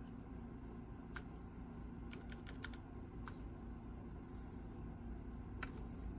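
Custom keyboard keys being pressed in Korean steno typing: scattered sharp key clicks, one about a second in, a quick run of several between two and three seconds, and more near the end, over a steady low hum.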